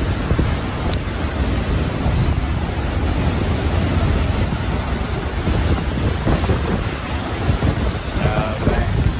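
A large waterfall's steady rush of falling and churning water, with wind buffeting the microphone in a deep rumble.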